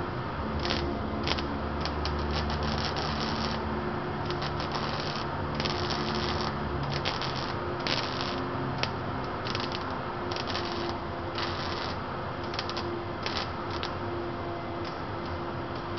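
Electric arc welder crackling and sputtering on a car's underbody steel, in a series of short welding bursts, mostly a second or so each, with brief pauses between them.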